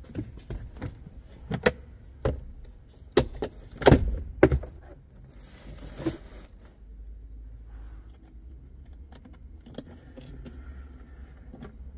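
2018 Subaru Forester's plastic glove box being opened and unclipped from the dashboard: a run of sharp plastic clicks, knocks and rattles, loudest about four seconds in, then a few lighter clicks.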